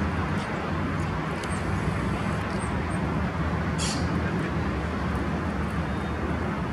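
Steady low rumble of distant city traffic, with a few faint high chirps in the first three seconds and one short high hiss about four seconds in.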